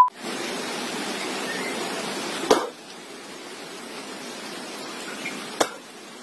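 A brief 1 kHz test-tone beep, then a loud even hiss like TV static that is cut off by a click after about two and a half seconds. A softer steady hiss follows, with another click near the end.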